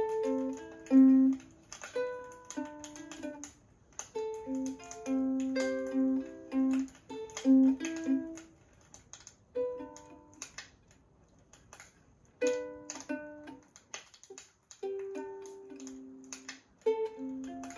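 Ukulele played by a learner: a plucked melody of separate notes that stops and restarts, with a couple of pauses of a second or two about two-thirds of the way through.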